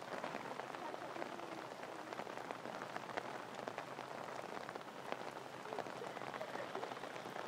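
Steady patter of falling water drops: a dense hiss dotted with many small ticks.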